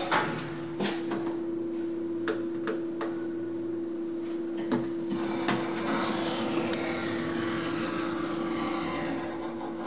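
Lift car travelling: a steady one-pitch hum from the elevator drive starts with a click about a second in and holds, with scattered sharp clicks and knocks over it.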